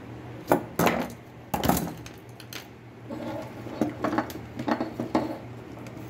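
Tools and multimeter test leads being handled on a wooden workbench: a few sharp knocks and clinks in the first two seconds, then lighter clicks and taps.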